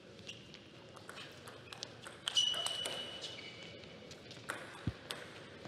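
Table tennis ball clicking off the bats and table during a rally, at irregular intervals, with players' shoes squeaking on the court floor. The longest squeak comes a little over two seconds in, right after a sharp click.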